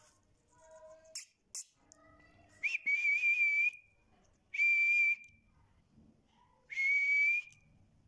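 Two sharp clicks about a second in, then three long whistles on one steady high pitch, each lasting under a second with short pauses between.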